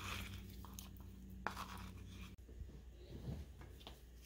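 Faint scratchy handling sounds from a metal bowl of wet carbon paste as it is tilted and moved, with a single sharp click about a second and a half in.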